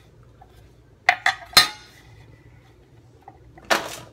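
Kitchen handling sounds: a chef's knife is set down with three sharp metallic clinks about a second in. Near the end comes a short scrape as chopped peppers are swept into an aluminium foil roasting pan.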